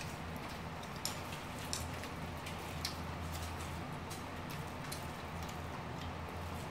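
Eating sounds: scattered small clicks and smacks of chewing and of chopsticks on plates, at irregular spacing, over a steady low hum.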